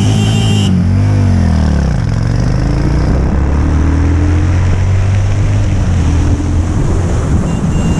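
Cruiser motorcycle engine heard from the rider's seat, dipping and picking up again through a roundabout, then climbing steadily as the bike accelerates, over a constant rush of noise.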